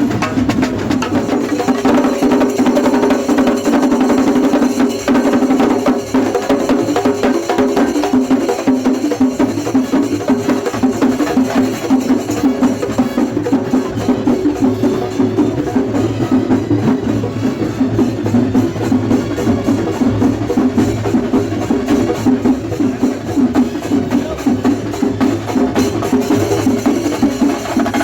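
Loud percussion-led music: fast, continuous drumming over a sustained melody.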